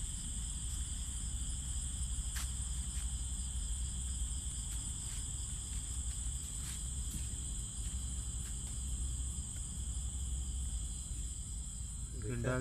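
Steady high-pitched chorus of crickets at night, with a low steady rumble underneath and a few faint clicks.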